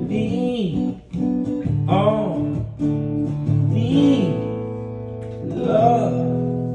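Live acoustic guitar chords under a few long, wordless sung notes that bend up and down, ending on a held chord left ringing out as the song closes.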